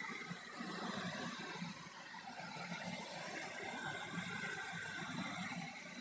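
Portable air conditioner running, giving a steady blowing noise from its fan.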